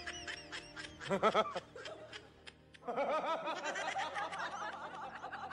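Quick, high-pitched snickering laughter in rapid repeated notes, over light music. A louder burst comes about a second in, then a short lull, then a longer run of snickering.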